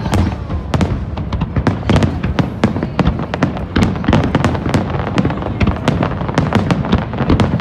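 Aerial fireworks shells bursting over and over in quick succession: a dense, unbroken run of sharp bangs and cracks over a low rumble.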